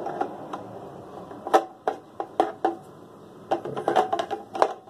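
A DeWalt 20V lithium-ion battery pack being worked and pushed onto its charger: a series of sharp hard-plastic clicks and knocks, several close together near the end.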